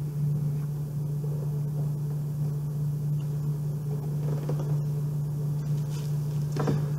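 A steady low hum, with faint rustles of a plastic mailer package being handled, about four and a half seconds in and again near the end.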